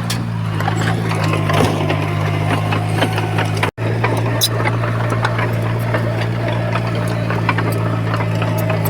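Diesel engine of heavy earthmoving equipment running steadily, with scattered metallic clanks and rattles over it. The sound cuts out completely for a split second a little under four seconds in, then resumes unchanged.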